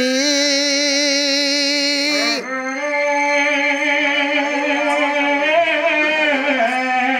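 Male voice singing a drawn-out Danda nritya devotional line with wavering, ornamented pitch over a steady held drone note; the voice changes tone a little over two seconds in.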